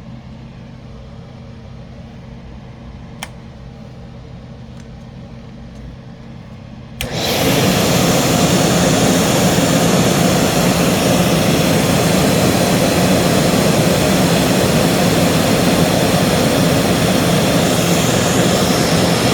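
Vintage Hoover Portable vacuum cleaner switched on about seven seconds in, its motor coming straight up to speed and then running steadily at full suction.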